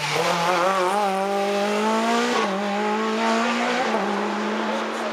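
Rally car accelerating hard away from a junction, its engine note climbing and dropping back at two upshifts, about two and a half and four seconds in.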